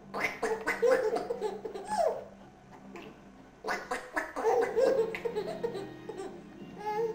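A baby laughing in two bouts, the first at the start and the second a little after the middle.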